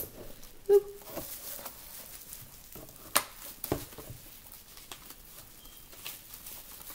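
Bubble wrap being handled and unwrapped: light rustling with scattered sharp crackles and clicks, the loudest about three seconds in. A short squeak about a second in.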